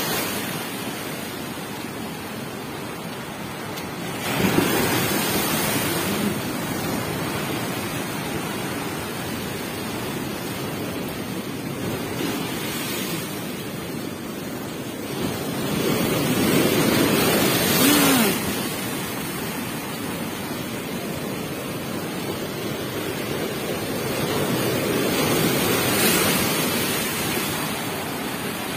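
Strong, rough-sea waves crashing and surging over the shore with a continuous rush of surf. The crashes swell loudest about four seconds in, again around sixteen to eighteen seconds, and near the end.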